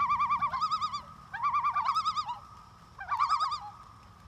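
Bird song: rapid wavering, trilled whistled phrases repeated over and over with short pauses between them.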